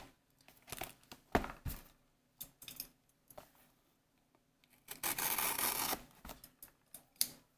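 Light taps and rustles of a cardboard booster box being handled, then, about five seconds in, a blade slicing through the box's plastic shrink wrap with a tearing sound lasting about a second, followed by a few light clicks.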